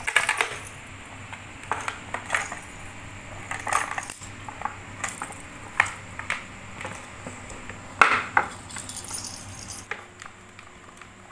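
Small plastic tray knocking and scraping on a tile floor as a kitten scrambles in and out of it and tips it, with jingles from a little bell on a feather wand toy. Irregular clicks and knocks, a louder cluster about eight seconds in.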